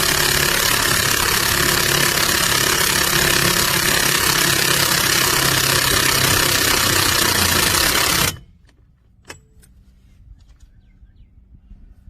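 Cordless impact wrench hammering continuously at full power, then cutting off abruptly about eight seconds in, followed by a few faint clicks.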